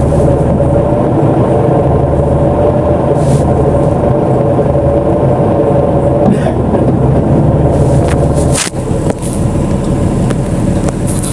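BonLuck DD6181S32 articulated bus under way, with a steady engine and road rumble and a steady whine over it. Around eight and a half seconds in the rumble dips briefly, with a few knocks.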